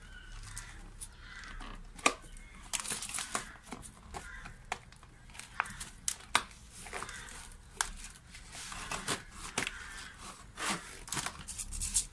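Thin plastic bottle crinkling and clicking, with rustling potting soil, as onion sets are pushed into holes in the bottle's side; irregular sharp clicks and crackles throughout.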